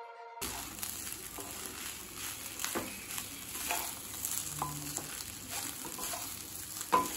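Egg fried rice sizzling in a hot pan as it is stirred and tossed with a wooden spatula, with scattered scrapes and knocks of the spatula against the pan, the sharpest near the end.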